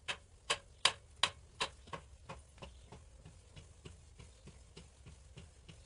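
Manual tube roller bending a galvanized steel tube, its mechanism clicking evenly as it is worked, a little under three clicks a second. The first few clicks are loudest and the rest fainter.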